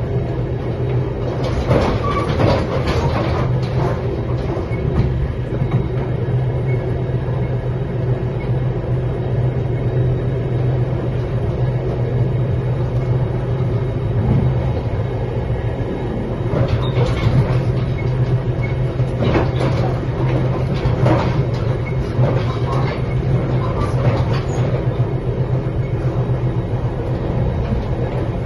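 Express passenger train running at speed, heard from inside the carriage: a steady low rumble and hum, with clusters of wheel clicks and rattles a couple of seconds in and again through the second half.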